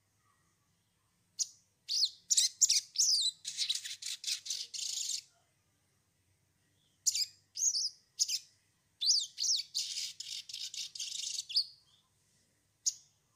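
A caged sogon songbird calling in two bouts: sharp high chirps and quick swooping whistles that run into a fast, dense chattering trill, with a pause of under two seconds between the bouts. A last single chirp comes near the end.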